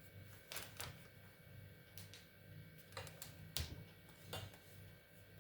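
Faint, irregular clicks and light taps, about six of them, from tarot cards being handled and laid on a table, over a low steady hum.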